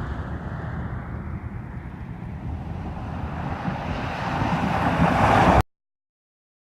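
Car driving along a road: engine and tyre rumble with wind on the microphone, growing louder near the end and cutting off abruptly about five and a half seconds in.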